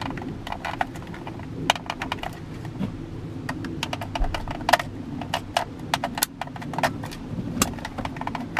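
Irregular plastic clicks and rattles as the stuck 3-speed blower fan switch of a 2001 Jeep Wrangler is wiggled and worked loose from the dash, with a steady low hum underneath.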